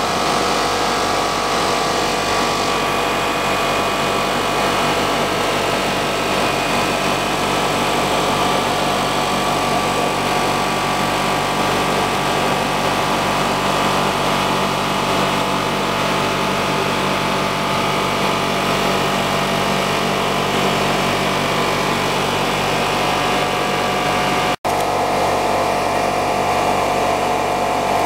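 Blown film extrusion line running: a steady mechanical whir of motors and blowers with several steady tones, broken by a momentary dropout near the end.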